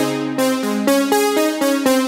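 Electronic background music: a synthesizer playing a quick line of short notes, about four a second.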